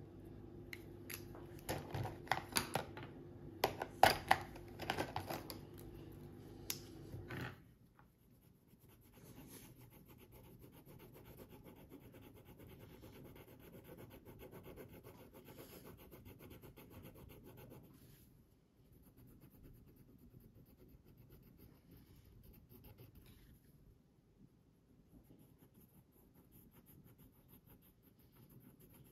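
Felt-tip marker scribbling on paper as a drawing is coloured in, a quiet rasping scratch that comes and goes. For the first seven seconds or so a steady low hum runs under a string of sharp clicks and taps, the loudest about four seconds in; after that only the scratching is left.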